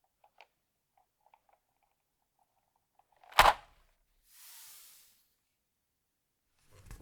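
Keyboard parts being handled during assembly: faint small clicks, then one sharp clack about three and a half seconds in, a brief soft hiss about a second later, and a quick rattle of clicks near the end.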